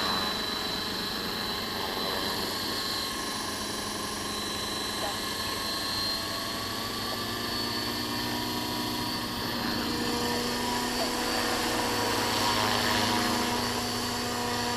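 Radio-controlled scale EC145 model helicopter in flight, its rotor and drive giving a steady whine with several held tones that rise a little about ten seconds in. The main blades are still slightly out of track, which the pilot blames for a shaking.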